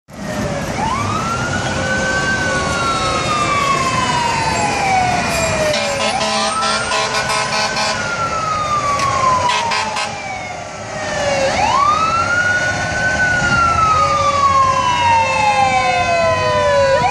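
Fire engine siren wailing: each cycle rises quickly and falls slowly, repeating about every five and a half seconds, over steady street traffic.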